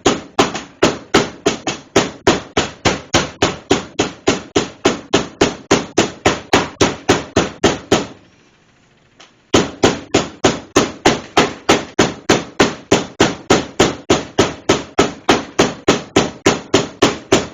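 A meat tenderizer mallet pounding boneless pork to cube it, in rapid even blows of about four a second. The beating stops for about a second a little past the middle, then resumes at the same pace.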